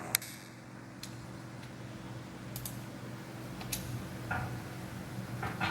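Teacup sound effect played back: a few sharp, light clicks and clinks of a cup being lifted and set down. The loudest comes just after the start, the rest are fainter and spread out, over a steady low hum.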